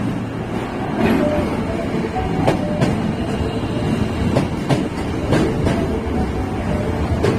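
Osaka Metro 22 series subway train rolling into the station with a steady rumble, its wheels clacking in pairs over the rail joints several times.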